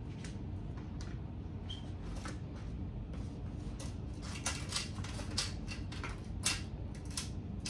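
A hairbrush stroked through damp, mousse-set hair: a series of short swishes, sparse at first and coming quicker in the second half, over a steady low hum.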